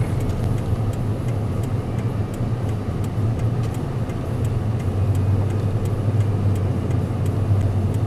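Steady low drone of a car's engine and tyres heard from inside the cabin while driving on a snow-covered highway.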